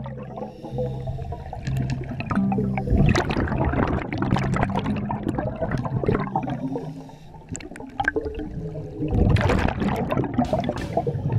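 Underwater bubbling and gurgling around a scuba diver's head-mounted camera, typical of the diver's exhaled air bubbles. A louder rush of bubbles comes about nine seconds in.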